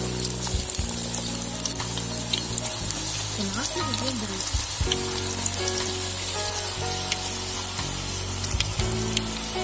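Tapioca chips deep-frying in hot oil in a wok, sizzling steadily as fresh raw slices are dropped in, with background music underneath.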